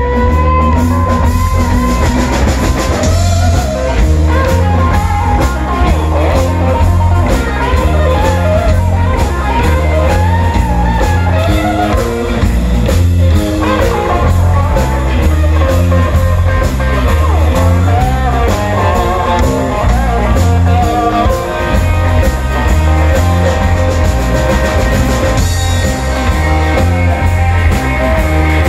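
Live electric blues band playing an instrumental passage on two electric guitars, bass guitar and drum kit. A lead guitar line bends and wavers over a steady bass and drum groove.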